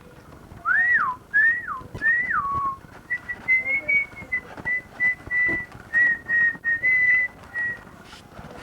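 A person whistling: three quick swoops that rise and then drop away, then a run of short, evenly pitched notes.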